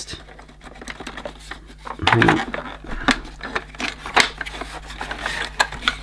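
Hard plastic cover on a vacuum cleaner's base clicking and knocking as it is hooked over its lugs and pressed into place by hand, in a string of short irregular clicks.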